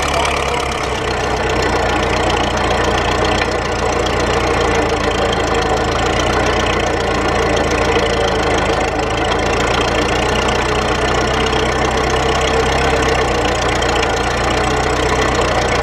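Ford Model T four-cylinder engine of a home-made tractor running steadily.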